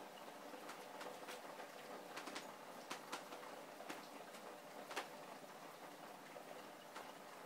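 Heavy rain falling: a steady hiss with irregular sharp ticks of single drops striking close by.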